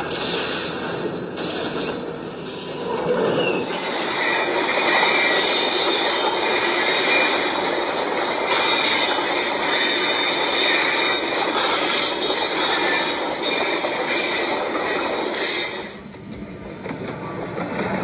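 Freight train running on steel rails, a dense rumbling rattle with high metallic wheel squeal over it. The noise drops off sharply about sixteen seconds in.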